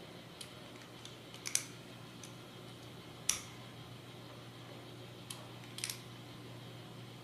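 Scattered light clicks and taps from small plastic mount parts and a small Phillips screwdriver being handled while screws are driven in, about seven sharp clicks in all, two of them louder, over a faint steady hum.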